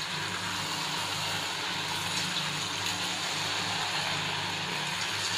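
Sticks of rice-flour dough deep-frying in hot oil in an iron kadai, a steady bubbling sizzle. The oil is fully heated, so the fresh dough bubbles hard. A low steady hum runs underneath.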